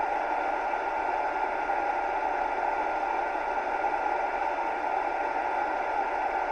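Hair dryer running steadily: a constant rushing whir of air with a faint steady whine from the motor.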